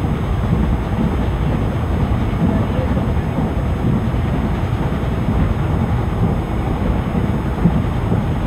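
An ICF passenger coach running on the track: a steady low rumble of wheels and coach, with wind buffeting the microphone.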